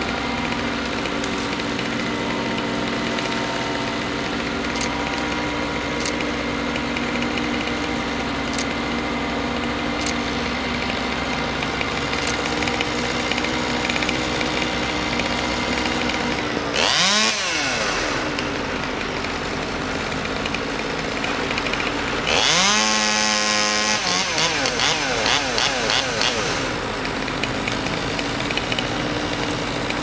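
Crane truck's engine running steadily while a chainsaw revs briefly about halfway through, then cuts at full throttle for about four seconds, severing the tree top held on the crane's line.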